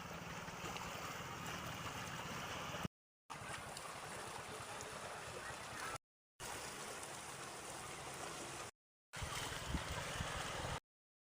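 Sea waves washing, a steady rushing noise heard in four short stretches, each cutting off abruptly to silence.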